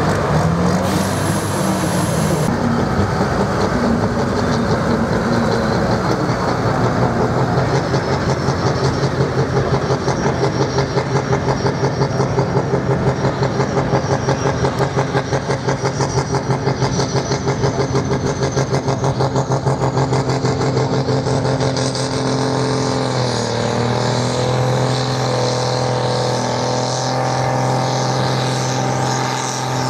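Pulling tractor's engine running loud and steady under load, with a pulsing beat in the sound through the middle and a brief dip in pitch about three-quarters of the way through before it settles again.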